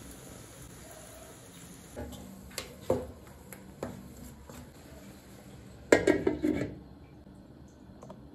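Wooden spatula knocking and scraping in a stone-coated pan as meat and onions are stirred, then a glass lid clattering down onto the pan about six seconds in.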